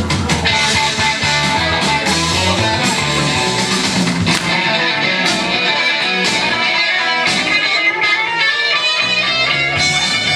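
Background music with guitar playing.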